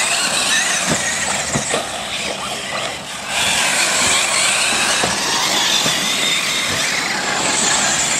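Radio-controlled cars driving on a dirt track: a high motor whine that rises and falls with the throttle over the rasp of tyres on loose dirt, with a few short knocks.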